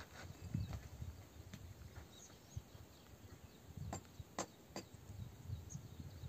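Faint outdoor ambience with low, gusty wind rumble on the microphone, and three sharp clicks a little past the middle.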